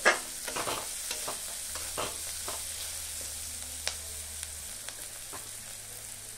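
Chopped onion frying in oil in an iron kadhai with a steady sizzle, stirred with a steel spatula that scrapes and clicks against the pan. The stirring strokes come thick and fast for the first two seconds or so, then thin out while the sizzle goes on.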